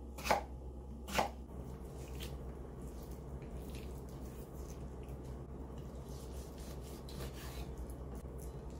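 Kitchen knife chopping on a cutting board: two firm chops about a second apart, then soft scraping and rubbing sounds.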